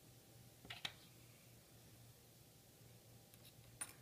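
Faint metallic clicks of a Timken tapered roller bearing being fitted by hand into a steel can-seamer roll: two quick clicks a little under a second in and one near the end, otherwise near silence.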